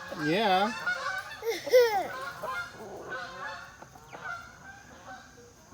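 Honking calls from farm fowl: a wavering call near the start and a louder rising-and-falling honk a little under two seconds in, followed by fainter calls.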